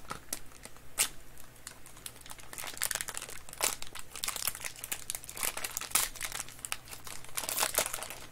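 Thin plastic wrapping crinkling as hands pull it open, a run of irregular sharp crackles that gets busier about two and a half seconds in.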